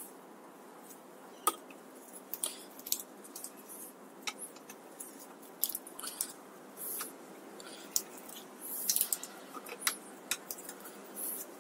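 Faint, scattered metallic clicks and small scrapes of a crank puller being handled and threaded into a bicycle crank arm.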